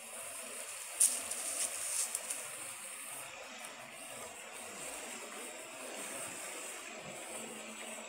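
Steady rush of river water and the wash of a small 4x4 pushing slowly through it, with a couple of brief clicks about one and two seconds in.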